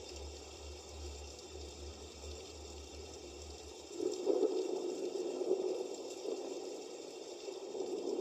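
Recorded running-water sleep sound played through the built-in speaker of an ecozy sunrise alarm clock: a steady watery rush that gets louder about four seconds in.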